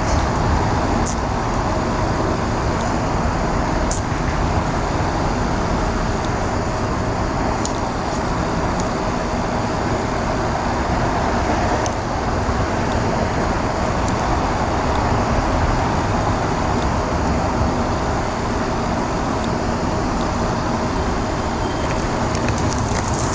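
Steady background noise, a constant rumble and hiss like distant road traffic, with a faint hum and a few small clicks.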